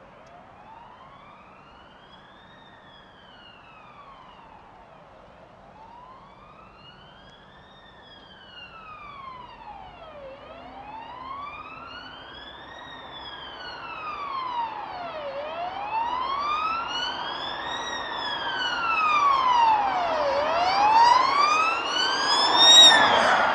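Ambulance siren in a slow wail, its pitch rising and falling about once every five seconds. It grows steadily louder as it approaches, with road noise swelling in near the end when it is closest.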